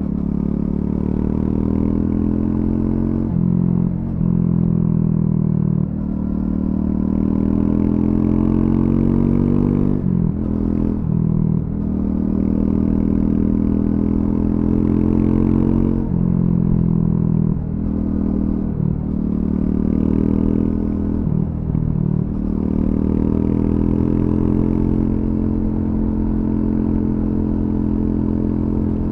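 Triumph Scrambler 400X's single-cylinder engine through its stock exhaust, under way: the revs climb steadily in long pulls and drop briefly several times at shifts or throttle roll-offs.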